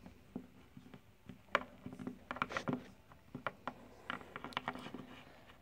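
Light, irregular taps and clicks of a small plastic Littlest Pet Shop figure being hopped and set down on a hard surface, with faint handling noise from the fingers holding it.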